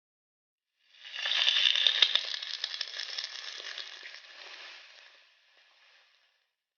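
Hot forged steel quenched in liquid: a sudden hiss full of crackles that is loudest for a second or so, then fades away over several seconds.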